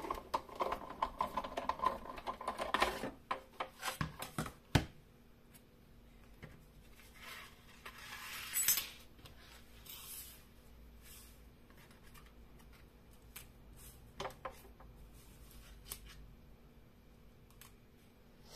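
Hand-cranked die-cutting machine being turned, its crank and rollers clicking rapidly for about three seconds. Then a few sharp clicks, a short rasp and scattered clicks as the cutting plates and paper die cuts are handled.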